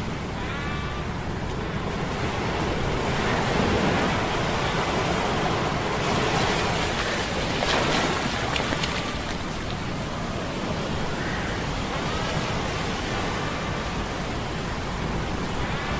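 Humming metal gears under sea-storm sound effects: a steady low hum beneath surging waves and wind. The surf swells louder from about three to nine seconds in, and a few faint short rising tones sound near the start and again later.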